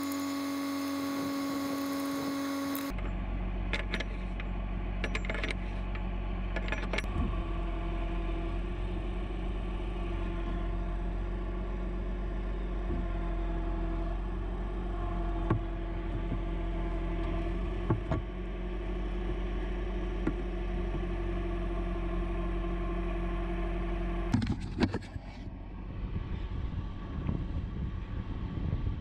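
Bucket truck engine running steadily with a low hum, with a few sharp clicks of hardware. For about the first three seconds a louder, higher steady tone sounds over it. Near the end the steady hum gives way to a rougher, noisier rumble.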